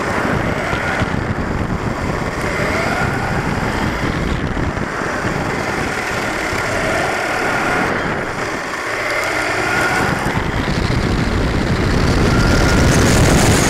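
Hobby King Trooper 1/10-scale 4x4 short course truck at speed, heard from a camera mounted on it: the electric motor and gears whine, rising in pitch several times as it accelerates out of the corners. Under the whine is a loud, steady rumble of tyres on asphalt and wind on the microphone, which grows louder near the end.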